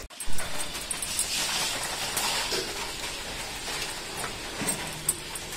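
Fibrous water lily stalks being cut and stripped against the edge of a boti blade, with a sharp knock just after the start and scattered small clicks, over a steady hiss of rain.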